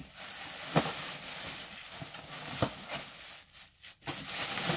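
Crinkling and rustling of thin plastic bags being handled inside a cardboard shoe box, with two sharp taps about a second in and past two and a half seconds in; the crinkling is loudest near the end.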